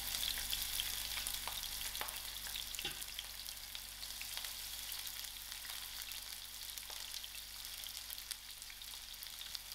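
Sliced onions frying in hot oil: a steady crackling sizzle that slowly eases off, with a few faint clicks.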